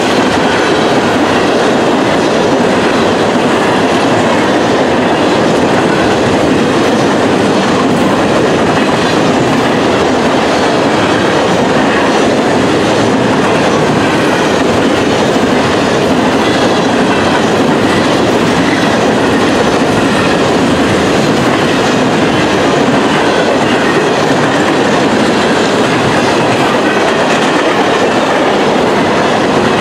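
Freight train's covered grain hopper cars rolling past close by: a loud, steady rumble and clatter of steel wheels on the rails.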